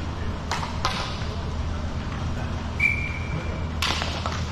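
A short, steady whistle tone held for about a second, then a clatter of hockey sticks on the plastic court tiles as the faceoff is taken. Two sharp stick clicks come in the first second, over a steady low hum from the rink.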